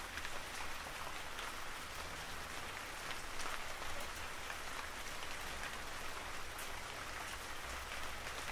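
Steady rain falling: an even soft hiss scattered with sharp drop ticks, over a low rumble.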